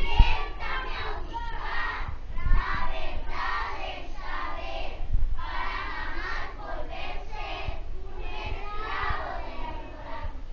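A chorus of children's voices together, with a few low thumps, the strongest about a second in.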